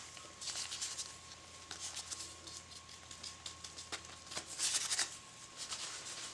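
Faint rustling and light clicks of plastic-gloved fingers crumbling powdered soap additive into a bowl of oils, louder for a moment about halfway through. A faint steady high tone sits underneath.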